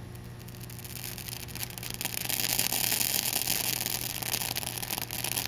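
Zinc galvanizing on a steel EMT conduit sizzling and crackling as it burns off the red-hot pipe in an induction heater's work coil. The crackle grows louder about two seconds in, over a steady low hum.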